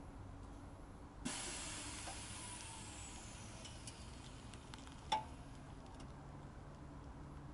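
Accuair air suspension venting air from its valves: a sudden sharp hiss that fades away over about three seconds, then a single sharp click a few seconds later.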